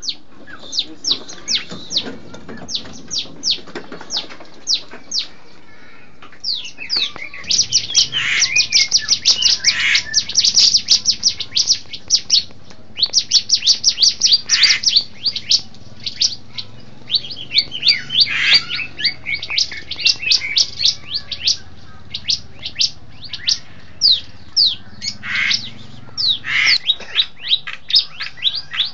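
Caged bar-winged prinia (ciblek) calling in long runs of sharp, high, quickly falling notes, several a second, with short pauses between runs.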